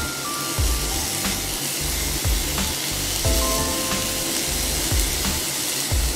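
Background music with low drum beats and a few held notes, over a steady hiss of frying from the pan of green banana stir fry with moringa leaves just added.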